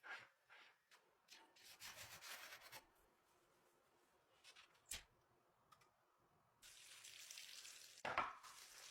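Faint kitchen handling sounds: scattered clicks and a short scrape, then a steady hiss from about two-thirds of the way in, with a single knock near the end.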